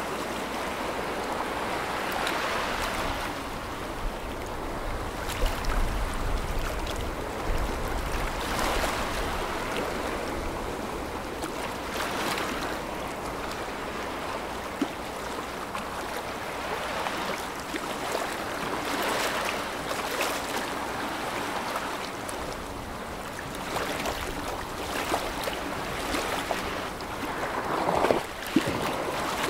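Water washing and splashing, with wind gusting on the microphone: a steady rushing noise broken by a few short, sharp splashes or buffets.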